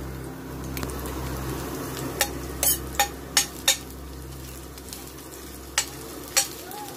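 Chopped garlic sizzling in hot oil in a stainless steel pot while a metal spatula stirs it, clinking and scraping against the pot about seven times in the middle and near the end. A low steady hum runs underneath.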